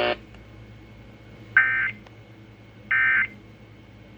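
Emergency Alert System end-of-message signal: short, identical bursts of warbling digital data tones, two of them about 1.3 s apart, marking the end of the severe thunderstorm warning broadcast.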